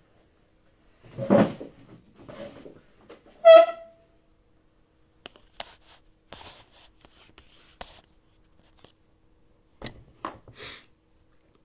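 Handling noises of a phone being set up and adjusted: scattered rustles, clicks and knocks, with a louder thump about a second in and one brief, high-pitched squeak a little later.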